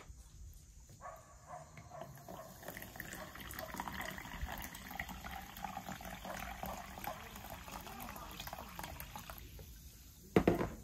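Water running from a tap, a steady splashing rush. Near the end a single short, loud thump.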